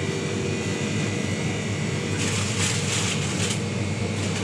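Steady low hum of supermarket refrigerated display cases running, with a brief rushing noise for about a second midway.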